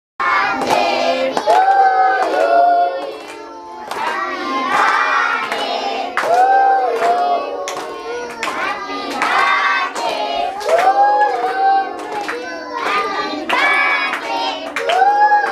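A group of women singing a song together, with hands clapping steadily in time to the beat.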